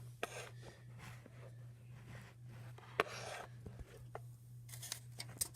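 Steady low hum with scattered sharp clicks and short bouts of rustling; the loudest click comes about three seconds in.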